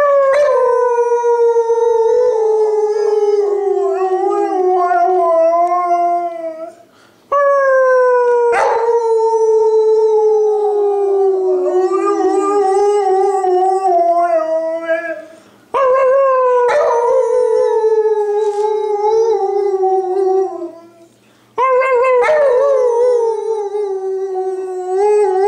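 Siberian husky howling: four long howls in a row, each starting high and sliding down in pitch, wavering toward its end, with short pauses between them.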